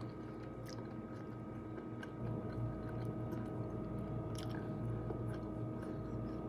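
A person chewing food with the mouth closed, with a few faint scattered clicks, over a steady low electrical hum.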